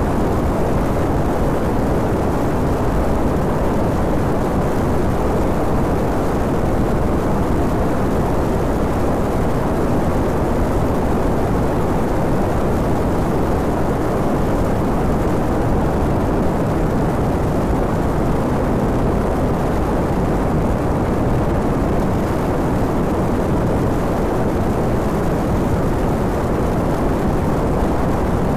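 Steady rush of wind over a handlebar-mounted phone microphone on a 2011 Honda VTR250 motorcycle cruising at about 80 km/h, with its V-twin engine running under the wind noise. The level holds even throughout, with no gear changes or sudden sounds.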